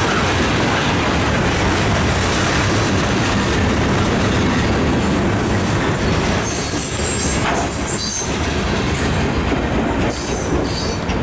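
Freight train cars, loaded centerbeam lumber flatcars, rolling past with a steady rumble and clatter of steel wheels on the rails. High-pitched wheel squeals come in from about six seconds in.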